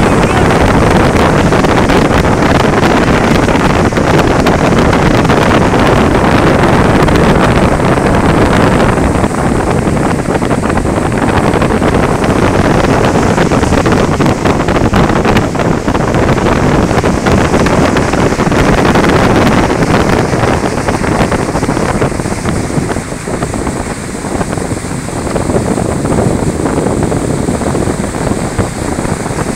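Wind rushing over the microphone of a phone aboard a speeding motorboat, mixed with the churn of the boat's wake and the boat's running engine. It eases off a little in the last third.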